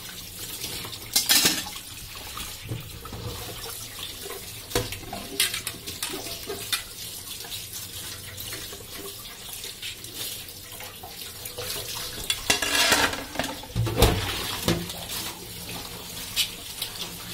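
Kitchen tap running into a stainless steel sink as plates are rinsed and rubbed by hand under the stream, the water splashing. A few sharp knocks of dishes against the sink, the loudest about a second in and again near the three-quarter mark.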